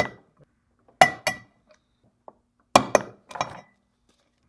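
Click-type torque wrench clicking off as coupler bolts reach 40 foot-pounds. A few sharp metallic double clicks with a short ring, one pair about a second in and another about three seconds in.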